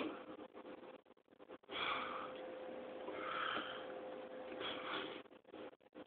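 Breathy hissing from a person close to the phone's microphone, in a few short spells, after a single click at the start. A faint steady hum lies underneath.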